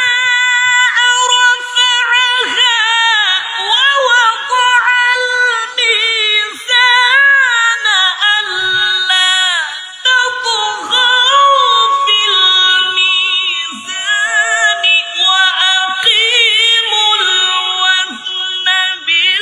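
High-pitched voice chanting Qur'an recitation in an ornamented melodic style, drawing out long held notes with sliding and quavering turns.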